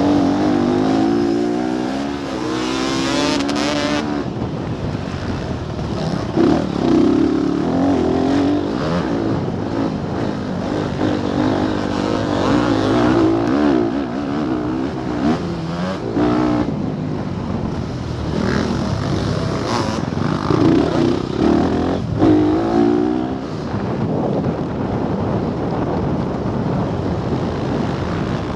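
Motocross bike engine heard from a camera mounted on the bike, revving hard and dropping back again and again as the rider accelerates, shifts and backs off around the dirt track.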